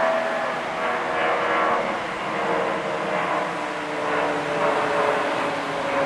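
An aircraft's engine drone, several steady tones drifting slowly lower, over the wash of surf that swells and fades.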